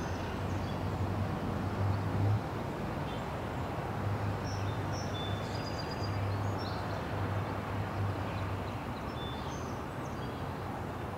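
Low rumble of an approaching CN freight train's diesel locomotive, with cars driving across the level crossing in front of it and birds chirping.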